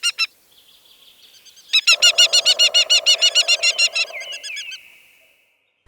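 Falcon giving a rapid, harsh kek-kek-kek series of about nine calls a second. It stops just after the start, then a second bout begins about two seconds in and thins out and fades near the end.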